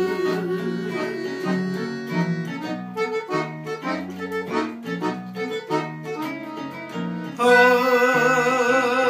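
Piano accordion and Yamaha electronic keyboard playing an instrumental passage. The keyboard keeps a steady rhythmic chord pattern under the accordion melody. About seven seconds in, a louder held note with a slight waver comes in.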